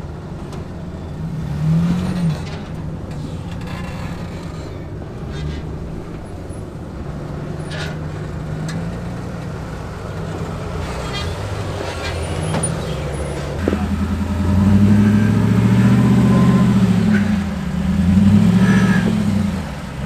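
Off-road Jeep engine running at low speed on a rocky trail, its pitch rising and falling with the throttle; from about two-thirds of the way in it revs harder and louder in several swells.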